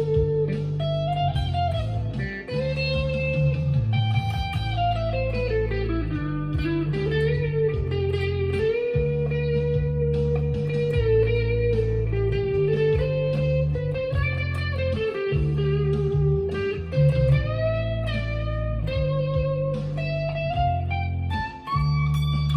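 Stagg SEL-STD electric guitar with its humbuckers split to single coil, played through a Fender Mustang LT25 modelling amp: a blues-style lead line of sustained notes with slides, string bends and vibrato over a steady backing with bass notes that change every couple of seconds.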